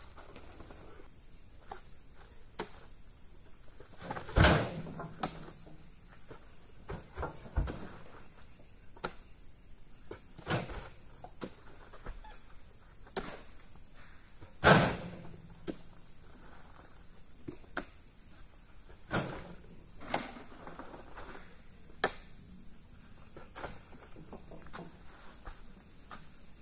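Oil palm fruit bunches being dropped or tossed onto a heap, giving irregular heavy thuds and knocks, with two much louder impacts about ten seconds apart.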